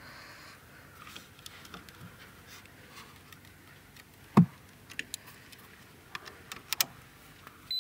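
Faint clicks and handling rattles as jumper-cable clamps go onto a car battery's terminals, with one louder knock about halfway through.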